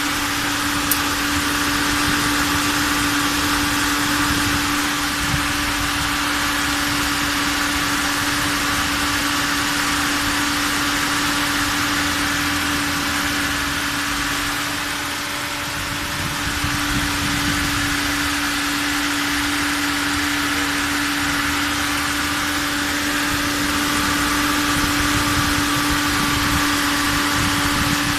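Toyota Etios electric radiator cooling fan running steadily, a constant hum over a rush of air. The fan stays on all the time, which the owner traced to air trapped in the cooling system that was not bled out.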